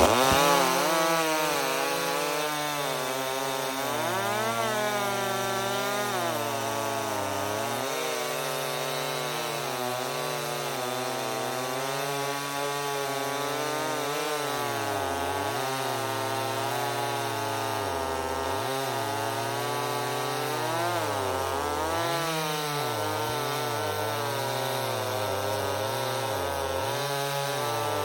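Two Stihl two-stroke chainsaws, an MS291 and an MS250, run at full throttle while cutting through wood at the same time. Each engine's pitch sags and recovers on its own as its chain loads and clears in the cut. The MS291 sounds like it needs a tune, in the owner's judgment.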